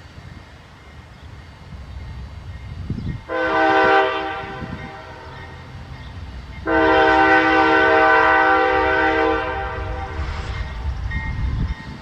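Train air horn sounding a short blast, then a longer blast of about three seconds, each a steady chord of several notes at a fixed pitch, over a low rumble.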